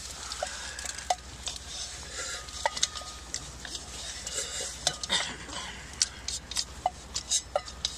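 Irregular light clicks and clinks of a metal camp mug being handled while drinking from it. Some taps ring briefly.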